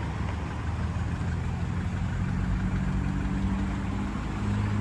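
1989 Nissan Sunny Estate's engine idling steadily, a low even hum with slight shifts in pitch.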